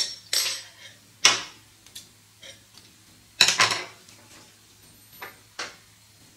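A metal crochet hook and other small items being handled and set down on a hard tabletop: a series of sharp clinks and clatters, the loudest cluster about three and a half seconds in, with fainter ticks near the end.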